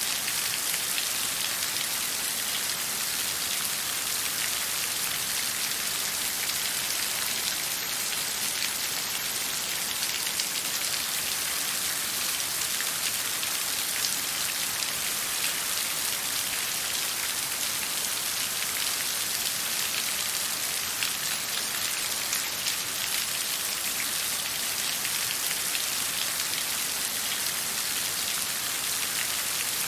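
Steady falling water: an even hiss of many small drops, unchanging throughout.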